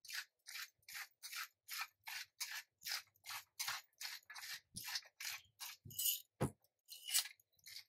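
Hand pepper grinder being twisted over seasoned steak, a dry rasping grind in quick regular strokes, about three or four a second. A few soft knocks come in the second half.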